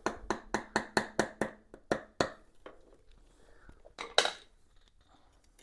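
A quick run of about ten sharp metallic clicks as a hand tool works at the round cover on a Kawasaki KL250's cylinder head, then one louder clatter about four seconds in.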